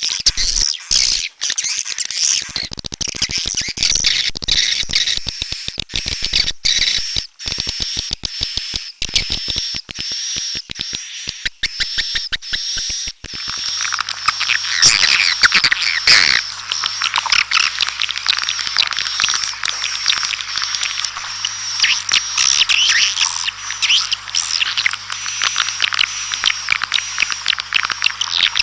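Swiftlet lure recording: a dense flock of swiftlets twittering in rapid high chirps, with many sharp clicks through the first half. About halfway through it changes to a thicker, busier chatter over a low steady hum.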